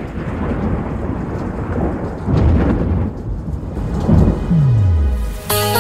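Thunderstorm: rain hissing under rolling thunder, with two loud rolls about two and four seconds in. A low tone slides downward near the end, and plucked-string music starts just before the close.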